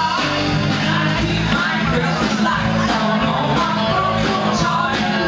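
Live country-rock band playing: electric guitars, bass and a steady drum beat, with a woman singing over them.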